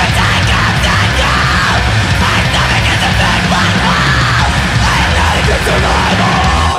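Loud, aggressive rock music with shouted vocals over a steady, heavy bass.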